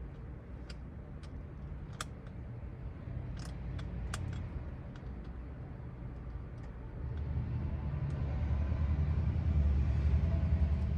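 Scattered small clicks and taps of hand work at a car's steering wheel, over a steady low rumble that grows louder about seven seconds in.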